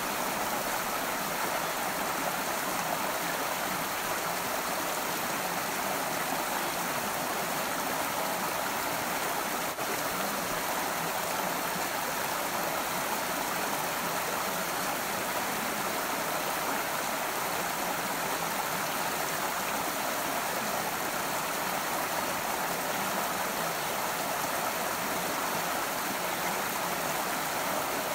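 Shallow rocky stream running, a steady, even rush of water.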